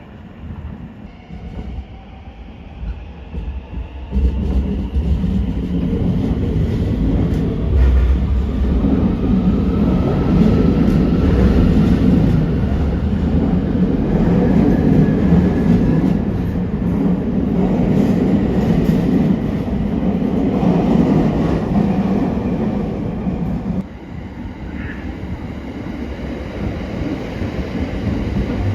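Electric train moving through a station: a rising motor whine, then, about four seconds in, a loud rumble and clatter of wheels on the rails that holds for some twenty seconds and drops back near the end.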